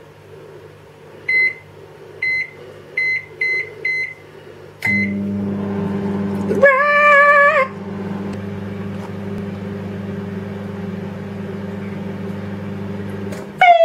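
Whirlpool microwave oven being set and run: six short keypad beeps, then the oven starts with a steady low hum about five seconds in. About two seconds into the hum a loud wavering tone sounds for about a second. Near the end the hum cuts off and a louder tone begins as the cooking cycle ends.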